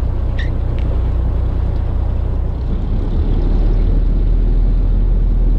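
Steady low rumble of a fishing boat's engine running, mixed with wind and sea noise; the rumble settles lower about three seconds in. A brief click about half a second in.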